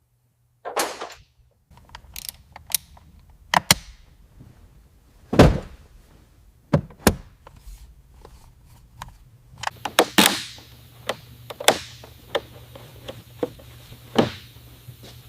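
Workshop tool work on an engine being bolted to its mounts: a string of separate metal clanks, clicks and thunks over a low steady hum, with a louder rushing burst about ten seconds in.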